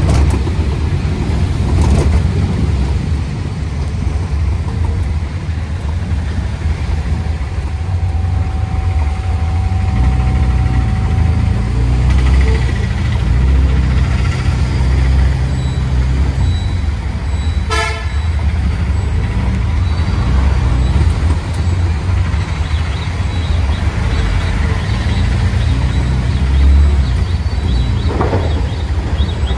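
Auto-rickshaw engine running steadily under way, heard from inside the passenger cabin on wet roads, with vehicle horns tooting from traffic at times. One sharp clatter comes about 18 seconds in.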